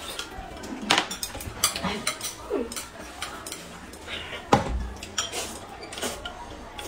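Tableware clinking and knocking as people eat: small spoons tapping glass cups of soup and chopsticks on plates, in scattered light clicks with one louder knock about halfway through.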